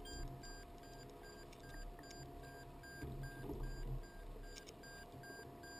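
Electronic alarm beeping in an even, rapid series of short beeps, two to three a second, over a low rumble of wind and water.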